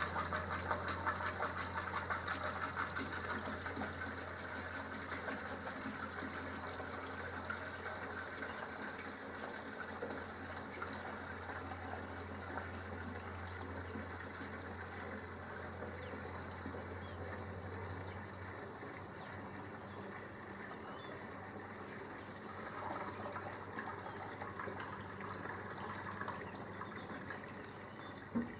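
Diesel pouring from a jug into a tractor's fuel tank, a steady gushing fill. A low steady hum underneath stops about two-thirds of the way through.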